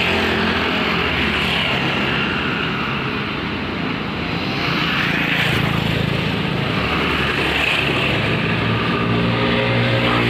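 A motor vehicle's engine running steadily, a low humming drone with a slight swell now and then.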